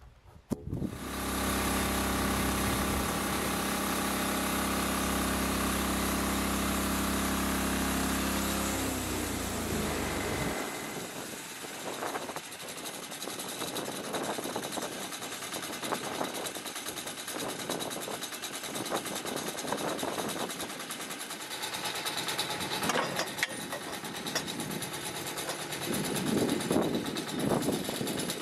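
The homemade bandsaw mill's diesel engine starts up abruptly and runs steadily with a deep, even hum. About nine to ten seconds in its pitch slides down and the deep hum drops away, leaving a rougher, higher running noise with frequent knocks and rattles.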